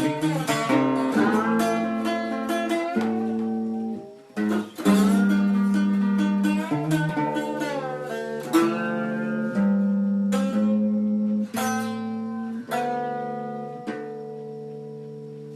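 Guitar playing a slow instrumental line of plucked notes and chords, some notes sliding in pitch. It ends on a chord left ringing and fading.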